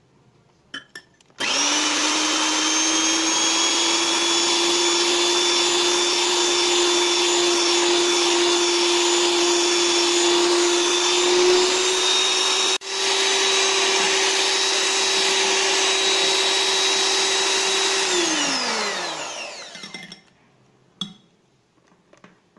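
Electric hand mixer whipping egg whites, switched on about a second and a half in and running steadily with a whine that creeps slightly higher in pitch, cutting out for an instant midway. Near the end it is switched off and spins down with a falling tone, followed by a click.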